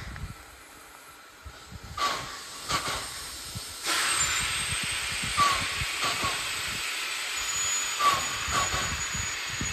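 Small steam tank locomotive getting under way, with slow, unevenly spaced exhaust chuffs from the chimney. About four seconds in, a steady hiss of steam from the open cylinder drain cocks starts and continues under the chuffs.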